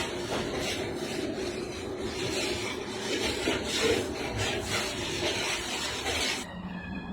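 A spatula scraping and stirring thick halwa around a large pan in repeated strokes. The scraping stops about six and a half seconds in, and a steady droning tone of music takes over.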